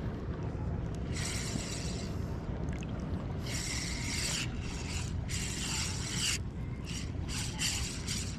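Ryobi Ultrapower 1000 spinning reel being cranked in spells of about a second with short pauses between, a whirring of its gears as the lure is retrieved. Under it runs a steady low rumble.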